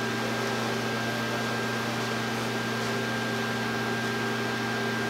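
A steady hum over an even hiss, with a faint high whine held at one pitch and no change in level.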